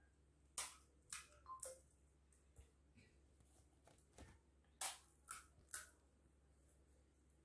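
Crisp pani puri shells cracking as they are poked open with the fingers: a cluster of sharp crackles about half a second in, then three more around five seconds in.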